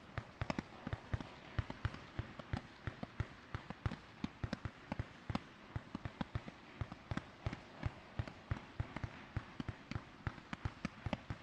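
A 100-shot, 30 mm-calibre fireworks battery (Blinkendes Sternenmeer) firing, a rapid irregular string of sharp launch pops, about four or five a second.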